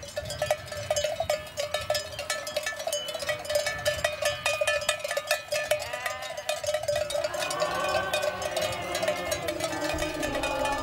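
Many sheep bells clanking in a dense, irregular jangle as a large flock of sheep walks along.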